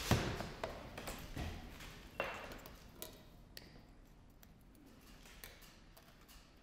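Scattered light taps and clicks with a brief ping, thinning out after about three seconds and fading to faint room tone.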